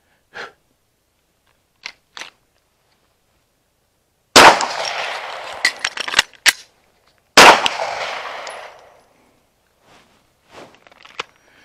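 Two handgun shots about three seconds apart, each followed by a long echo. Between them come a few sharp metallic clicks from a fast magazine change, in a draw, fire, reload, fire drill.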